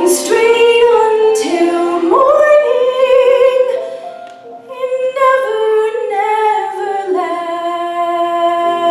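A woman singing solo into a stage microphone: long held notes with vibrato. She pauses briefly about four seconds in, then holds a long note near the end.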